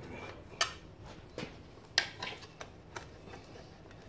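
Sharp metallic clicks and clinks of tools and fasteners being handled while the mower's engine shroud screws are taken out: two louder clicks about half a second and two seconds in, with fainter taps between.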